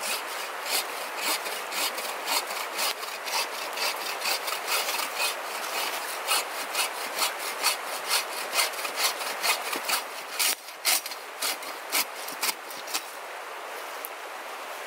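Rhythmic back-and-forth scraping or sawing strokes, about two to three a second, stopping near the end, over the steady rush of a brook.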